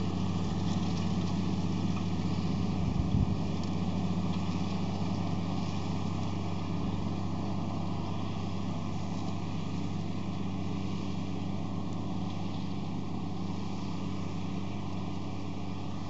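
A diesel engine runs steadily at constant speed, a low even drone that fades slightly. Wind buffets the microphone near the start.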